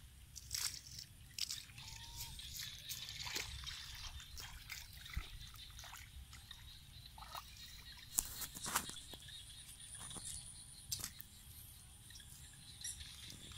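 Shallow floodwater sloshing and dripping as a person wades and reaches into it, with scattered sharp knocks and clicks, the loudest a little past the middle.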